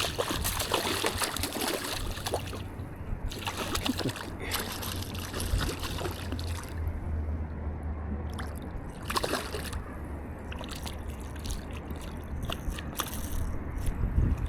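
Water sloshing and splashing in irregular bursts, with a low wind rumble on the microphone through the middle.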